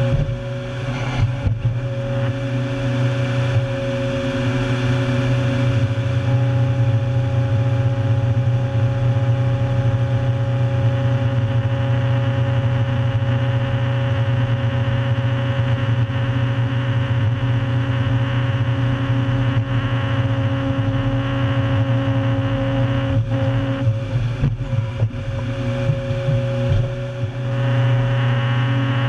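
Tracked 400-plus-horsepower stump-destroyer machine running steadily under load, heard from inside its cab: a deep engine drone with a steady whine over it as the rotary head bores through a stump. There are sharp knocks about a second in and again around twenty-four seconds in.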